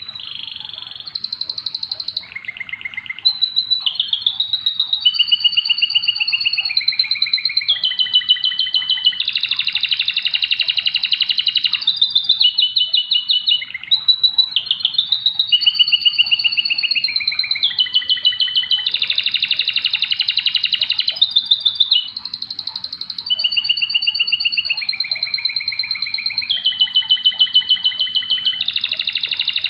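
Domestic canary singing in full, continuous song: long runs of rapid trills and rolls, switching to a new phrase every second or two.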